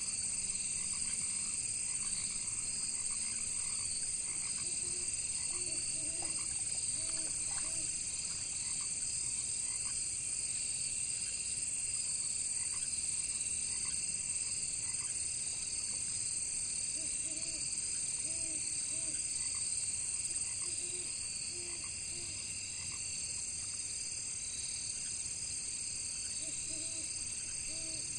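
Frogs croaking in short runs of three or four low notes, a few times, over a steady high-pitched chorus of crickets.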